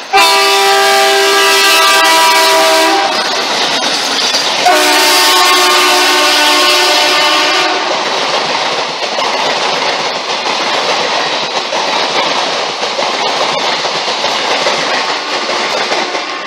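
Indian Railways train locomotive sounding its horn in two long blasts of about three seconds each, then the passenger train running past with the steady clickety-clack of its coaches on the rails.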